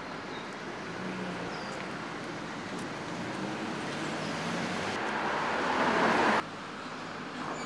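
Street traffic on a wet road: a steady hiss of tyres and engines that grows louder, then cuts off suddenly about six seconds in.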